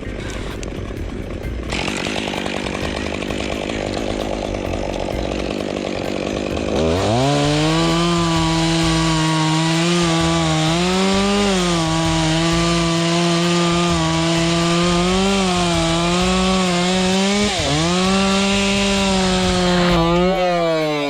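A chainsaw cutting elm. About a third of the way in it comes up to full throttle and holds a steady high pitch, dipping briefly twice as it loads in the cut, then winds down near the end.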